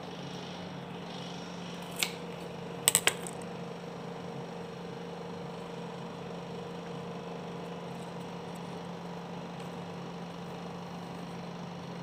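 Steady low hum, with a single sharp click about two seconds in and a quick run of three clicks about a second later.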